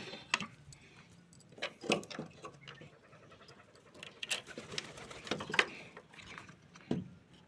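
Domestic pigeons cooing in and around their coop, with scattered sharp clicks and knocks.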